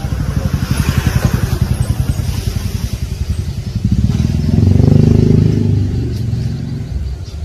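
An engine running with a fast low pulse, swelling louder to a peak about five seconds in and then easing off, as if a vehicle passes.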